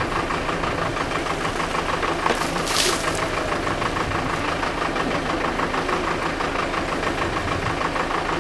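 Backhoe loader's diesel engine idling steadily with an even, rapid knocking pulse. A short hiss cuts in about three seconds in.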